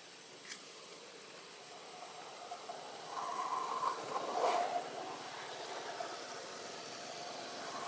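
Engine noise of a passing motor vehicle, swelling about three seconds in and easing off after about five seconds, over a steady outdoor hiss.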